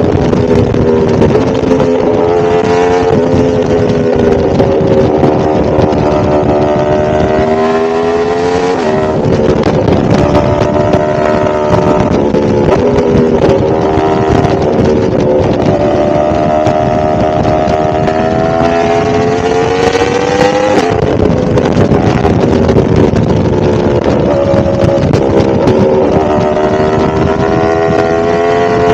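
A 1000cc motorcycle engine running under way. Its revs climb slowly, then fall sharply about nine seconds in and again about twenty-one seconds in.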